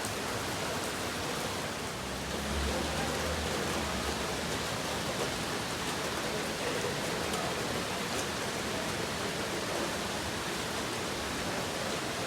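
Heavy rain pouring down, a steady rushing hiss, with a brief low rumble about two and a half seconds in.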